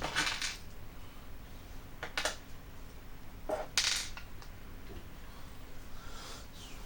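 Short, sharp clicks and clatter of small parts of a Tamiya TL01 radio-control car chassis being handled and fitted together during reassembly. Three separate clatters: near the start, about two seconds in, and a louder one around three and a half seconds in.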